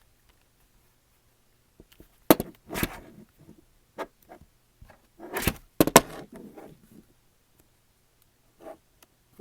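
The plastic back cover of an LG tablet being pried off by hand: sharp clicks and scraping as the cover's clips pop loose, loudest in two clusters a few seconds apart with smaller ticks between.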